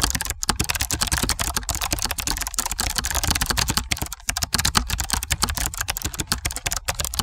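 Rapid, continuous clatter of sharp clicks, many per second, with a low steady hum beneath.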